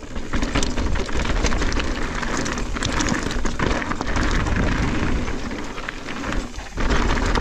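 Mountain bike tyres rolling fast over a loose slate-and-stone trail, with stones crunching and clicking under the wheels and wind buffeting the action camera's microphone. The noise briefly dips about six and a half seconds in, then carries on.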